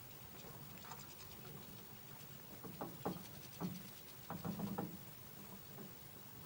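Finches scrabbling on a plastic feeder tray of sunflower seeds: quick clicks and rattles of seeds, beaks and feet against the plastic, in two short flurries a few seconds in, over a faint steady low hum.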